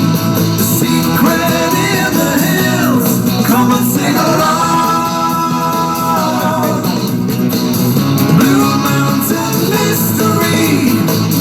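A rock-and-roll style song with guitar and singing.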